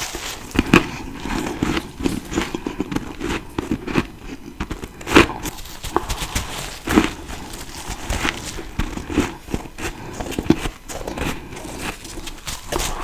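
Close-miked biting and chewing of fresh freezer frost. Repeated crisp crunches, with a handful of loud bites spaced a second or two apart among rapid smaller crackles of chewing.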